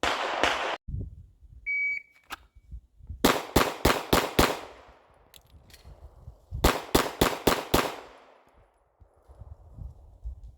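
A shot timer beeps once, then a Glock 19 pistol fires two quick strings of five shots, about four shots a second, with roughly two seconds between the strings.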